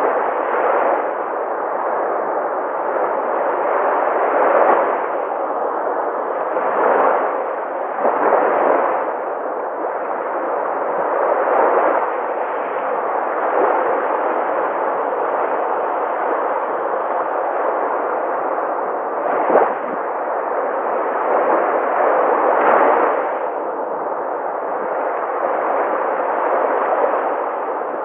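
Sea waves breaking and washing ashore in a continuous rush that surges and eases every few seconds, with one sharper crash about two-thirds of the way in.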